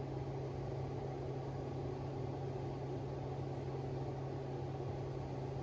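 A steady low mechanical hum, one constant tone over a rumble, that does not change.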